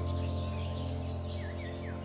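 Background ambient music holding a low sustained chord that slowly fades, with short bird chirps mixed in.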